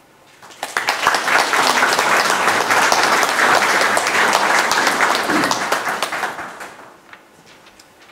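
An audience applauding. The clapping starts about half a second in, holds steady for several seconds, then dies away about seven seconds in.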